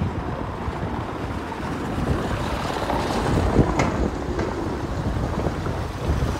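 Wind buffeting the phone's microphone: an uneven low rumble, with a few faint ticks about halfway through.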